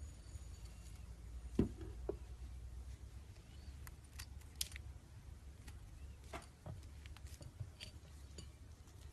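Slime being handled: scattered small crisp clicks and taps, with a soft knock about a second and a half in, over a faint low hum.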